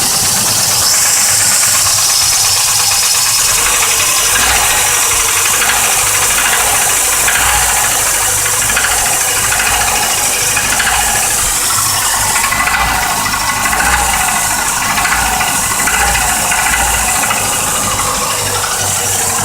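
1986 Volvo 240 DL engine running steadily just after a cold start, with a loud knocking rattle over the idle: piston slap, a racket from the pistons rocking in their bores.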